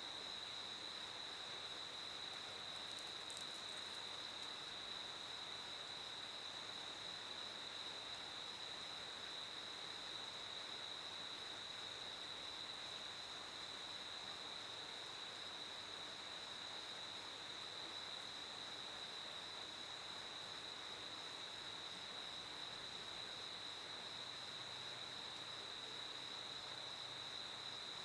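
Crickets chirping in a steady, unbroken high trill, fairly faint.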